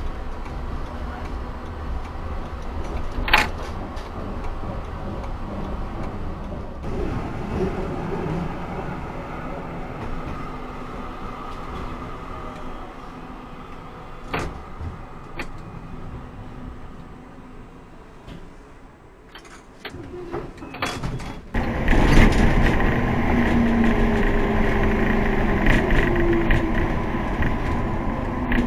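Tram running along its rails, heard from the driver's cab: a steady rumble with a few sharp clicks. The sound changes suddenly twice where clips are joined, and is louder in the last several seconds, with a faint rising and falling whine.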